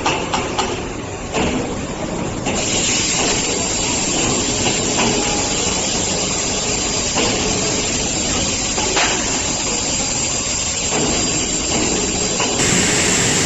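Steady loud hiss of a CNC plasma cutting machine working under its dust-extraction airflow, with faint scattered clicks. The noise turns brighter about two and a half seconds in and again near the end.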